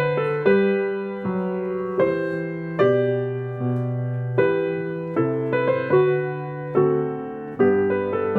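Solo piano playing a slow, even piece. A new note or chord is struck about once a second, and each is left to ring and fade before the next.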